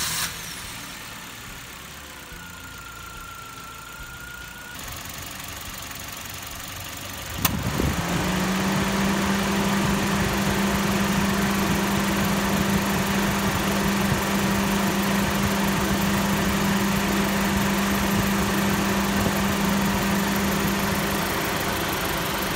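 Car engine idling. About seven seconds in, a click, and the Suzuki Ertiga's newly fitted electric radiator fan switches on, running with a steady hum and rush of air: the replacement fan motor turning smoothly, with none of the old motor's rough noise.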